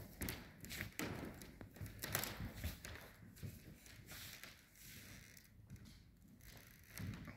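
Faint, irregular rustling and soft taps from a handheld phone being moved around: handling noise on the microphone.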